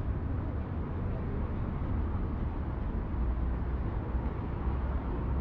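City street ambience: a steady low rumble of passing traffic under a general outdoor hiss.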